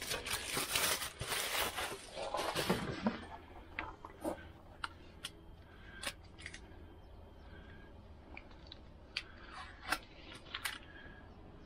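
Plastic packaging rustling and crinkling as a new van vent glass is unwrapped, for about three seconds. After that, scattered light sharp clicks and taps as the loose glass pane is handled.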